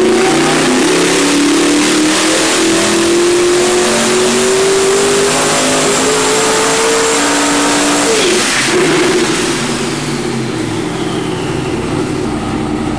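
Twin-turbo 632 cubic inch big-block Chevy V8 on an engine dyno at full throttle, its note climbing steadily in pitch for about eight seconds through a load sweep. Then it drops off throttle, falling back to a lower, quieter running note, with a faint high whine falling in pitch near the end.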